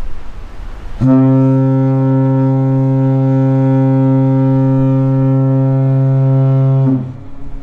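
The ship's horn of the ferry Spirit of Vancouver Island sounding one long, steady, low blast. It starts about a second in and lasts about six seconds.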